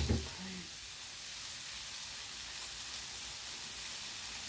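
Steady sizzle of food frying in a pan on the hob, with a sharp clunk right at the start.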